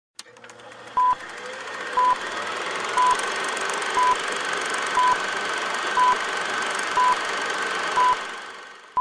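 Old-film countdown leader sound effect: a short, loud, high beep about once a second, over a steady hiss with faint crackle that fades out near the end.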